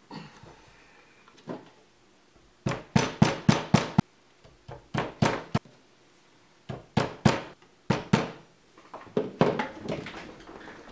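Light hammer taps in quick groups of several strikes, knocking 3D-printed PLA chest parts into place.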